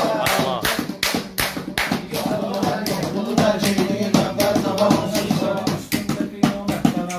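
Meyxana: a man chanting rhymed Azerbaijani verse in rhythm over a steady percussive beat, with listeners clapping along.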